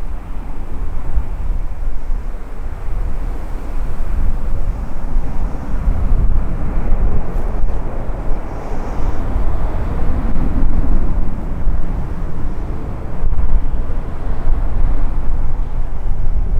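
Jet engine noise from the Airbus Beluga XL's two Rolls-Royce Trent 700 turbofans on take-off, a steady rumble that swells to its loudest about ten seconds in and then eases slightly.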